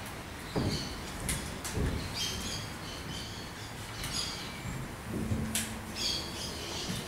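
Short high bird-like chirps and twitters come and go, with a few dull knocks from a wooden stool being moved and set down on a stage floor.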